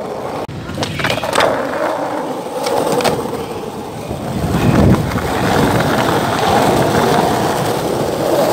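Skateboard wheels rolling on concrete, with sharp clicks as the wheels cross cracks and joints in the pavement and a heavier thud about halfway through.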